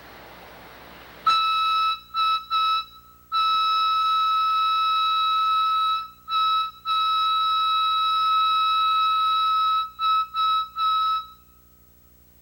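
One-inch plain steam whistle fitted with a quarter-inch Jarecki valve, blown on compressed air. It sounds one high, steady note in a string of blasts, starting about a second in: short toots between two long blasts of about three seconds each.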